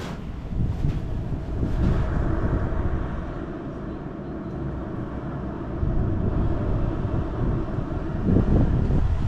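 Wind buffeting the camera's microphone: a loud, uneven low rumble, with a few knocks near the end.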